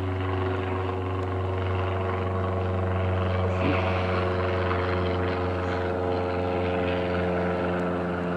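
Small single-engine propeller airplane flying overhead, its engine and propeller giving a steady drone that holds at one pitch.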